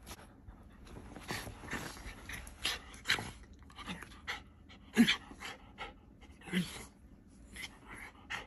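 A dog panting and snuffling in short, irregular breaths while it wriggles on its back on bedding, with the covers rustling. A short, louder low sound about five seconds in is the loudest moment.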